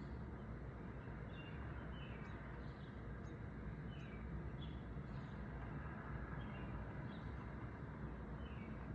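Steady low outdoor background noise with a bird chirping over it: short, downward-sliding high chirps repeated about once a second.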